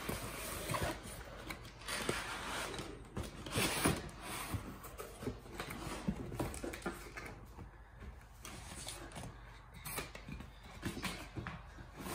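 Packaging being handled on a tabletop: a cardboard shipping box, then a plastic shrink-wrapped product box, rubbed, shifted and set down in irregular rustles, scrapes and knocks.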